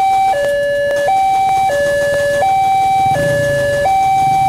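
Railway level-crossing warning loudspeaker sounding its electronic 'genta' bell while the crossing is closed: a steady alternating high-low two-tone, each tone held about three quarters of a second. A low rumble joins about three seconds in.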